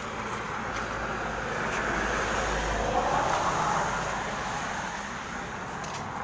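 A vehicle passing by on the road, its tyre and engine noise swelling to a peak about three seconds in and then fading away.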